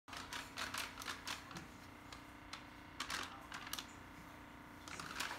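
A baby's hands and a plastic baby food pouch tapping and slapping on a tile floor as she crawls: irregular taps, several in the first second or so, a cluster around the middle, another near the end.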